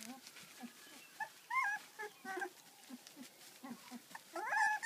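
Labradoodle puppies whimpering: short, high, wavering squeals over frequent little low grunts, with the loudest squeal near the end.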